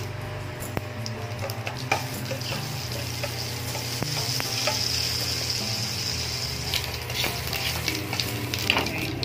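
Mustard seeds, cumin, bengal gram and dried red chillies frying in hot ghee in a steel kadai: a steady sizzle, louder in the middle, with scattered popping crackles as a spoon stirs the tempering.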